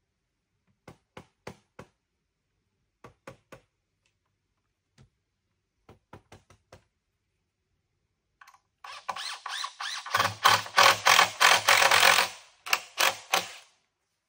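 Light knocks and clicks in small groups, then a cordless power driver running loudly in a pulsing burst for about five seconds as it drives a screw into the timber framing, with a short break near the end.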